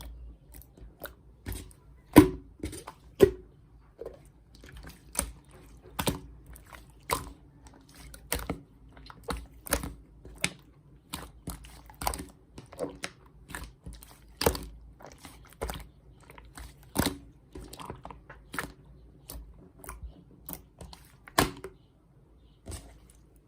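Chewing crunchy food: sharp crunches repeating irregularly, about one or two a second, over a faint low hum.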